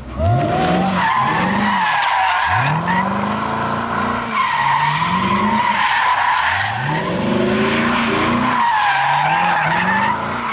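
Chevrolet Corvette Stingray's V8 revving up again and again while its spinning rear tires squeal continuously through donuts on asphalt. The squeal wavers in pitch and the engine note climbs and falls every second or two.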